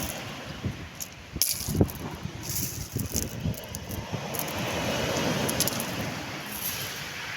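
Sea waves washing on the shore, one swelling in about five seconds in, with wind noise on the microphone and a few sharp knocks.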